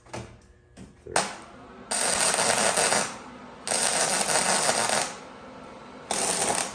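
Flux-core MIG welder tacking sheet steel on a car's rocker panel: several crackling bursts of about a second each, with short pauses between.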